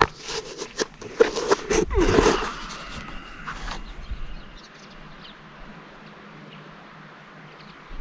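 Knocks, clicks and rustling from a camera being handled and passed over for about four seconds, then a quiet open-air background with a few faint bird chirps.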